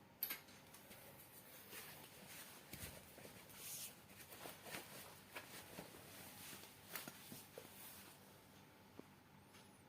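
Faint, scattered light clicks and taps, with a low soft thump about three seconds in and a sharper click about seven seconds in.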